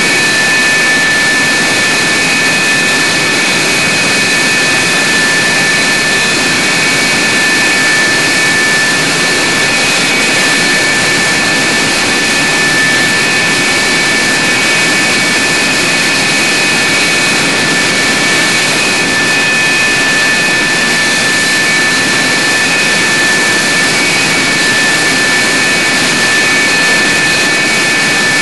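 F-104 Starfighter's J79 turbojet running steadily on the ground: a loud, even rushing hiss with several steady high whining tones, unchanging throughout, inside a hardened aircraft shelter.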